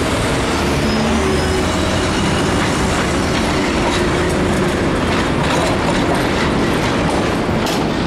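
Street trams running on the rails: a steady rumble with wheels clicking over the rail joints, mixed with passing car traffic.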